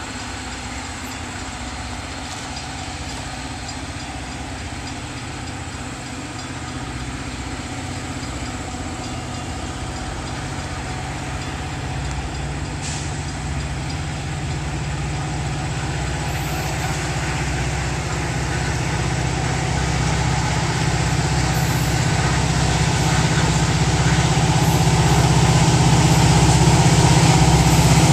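A Metra EMD F40PH diesel locomotive approaching at the head of a commuter train, its engine drone growing steadily louder as it nears.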